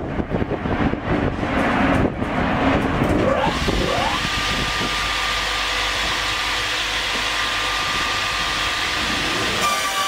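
Triumph 900 Premium horizontal band sawmill running as its saw head travels along the rail track. It is an uneven noise at first, then a whine rises about three to four seconds in and settles into a steady high hum.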